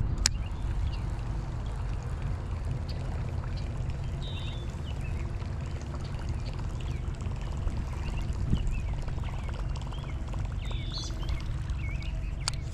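A Whopper Plopper topwater lure retrieved across a creek's surface, its spinning tail plopping and gurgling, under a steady rumble of wind on the microphone. Faint bird chirps come and go, with a sharp click near the start and another near the end.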